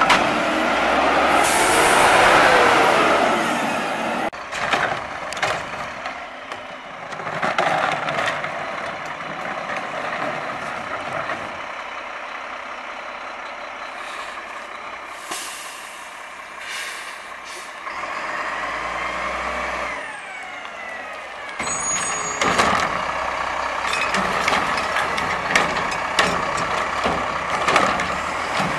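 Mack LEU garbage truck with a Curotto-Can automated arm working recycling carts. The hydraulic arm whines as it lifts and dumps a cart near the start, followed by clunks. Between stops the diesel runs and the air brakes hiss in short bursts, and the arm starts working again near the end.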